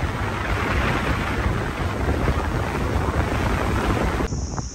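Strong wind buffeting the microphone: a loud rushing hiss over a low, fluttering rumble, cut off abruptly near the end.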